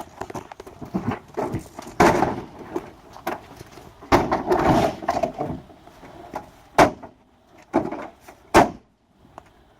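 Irregular knocks, bangs and clatter of objects being moved and set down, with a few sharp bangs near the end.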